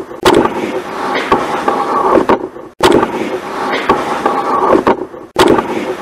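A short stretch of boosted room audio, about two and a half seconds long, replayed back to back so the same knocks and muffled sound come round again each time. The uploader takes a faint sound in it for a female voice saying "careful".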